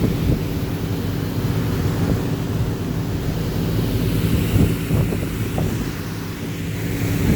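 Fishing boat's engine running steadily as the boat cruises, with wind blowing across the microphone and occasional gusts about five seconds in.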